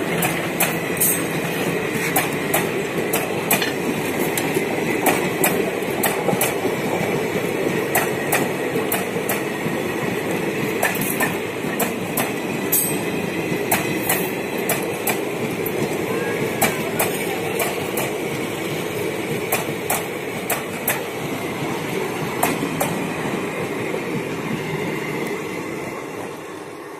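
Indian Railways passenger coaches rolling past at close range: a steady rumble of steel wheels on rail, dotted with sharp clicks and clacks as the wheels cross rail joints. The sound fades over the last few seconds as the last coach goes by.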